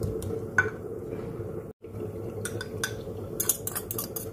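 A wooden pestle knocks a few times in a ceramic mortar. After a brief break, a metal fork clinks and scrapes quickly against the ceramic bowl as the contents are mixed, over a steady low hum.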